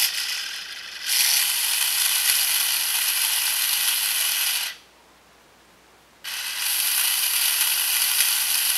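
Power drill running in two long bursts while polishing a phacoemulsification needle tip in a cloth, a steady high motor whine. It stops at about four and a half seconds and starts again about a second and a half later.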